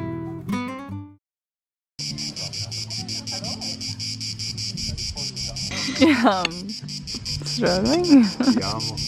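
Crickets chirping in a dense, fast-pulsing trill, starting about two seconds in after guitar music ends.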